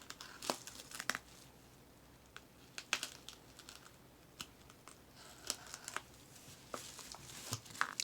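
A parcel being opened by hand: packing tape slit with a razor blade and torn, and wrapping crinkled, in scattered crackles and short rustles.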